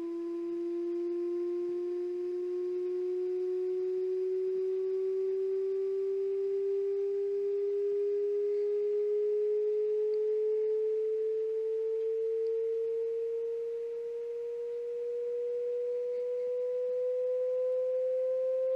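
A pure electronic test tone, a sine-wave sweep, sounding without a break and gliding slowly and evenly upward in pitch.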